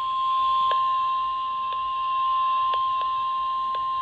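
NOAA Weather Radio 1050 Hz warning alarm tone: one steady, unbroken beep that signals a warning broadcast is about to follow. It comes through a radio receiver, with hiss and faint clicks about once a second.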